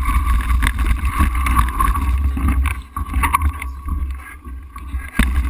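Low, steady wind rumble on the camera microphone, with scattered knocks and crunches from a mountain bike being moved along a gravel track. The rumble eases about halfway through, and a few sharp knocks come near the end.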